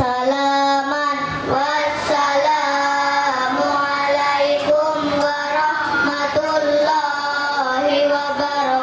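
A child's voice singing a sholawat through a microphone, in long held, ornamented notes that slide between pitches, with no drum accompaniment.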